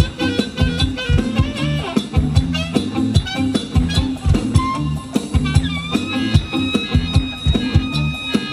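Live Thai ramwong dance band music: a steady, even drum beat with bass under a bending melody line, which settles into a long held note near the end.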